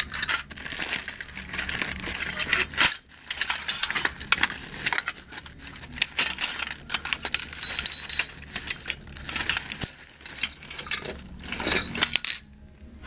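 Small metal hardware, screws and fan parts, clinking and rattling as it is sorted and handled, in quick irregular clicks with a short pause near the end.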